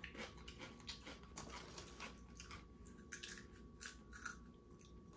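Faint crunching of potato chips being chewed: a run of small, irregular crackles.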